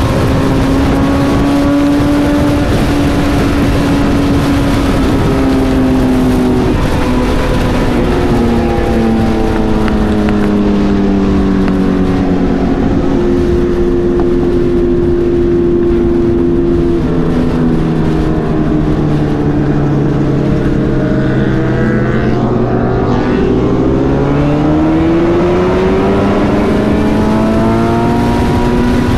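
Sportbike engine running at highway speed under heavy wind rush on the microphone. Its note sinks slowly as the revs fall over about twenty seconds, then rises again as the bike accelerates, a few seconds from the end.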